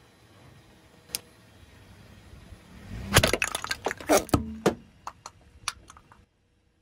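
Car tyre rolling over a row of wooden matryoshka nesting dolls: a rising crunch of the tyre, then a quick cluster of sharp cracks and snaps as the dolls split under the wheel, followed by a few scattered ticks of fragments before the sound cuts off suddenly.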